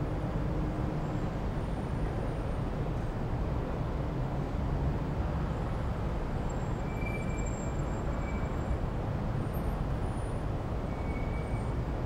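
City ambience: a steady low rumble of distant road traffic, with a few faint short high whistling tones in the second half.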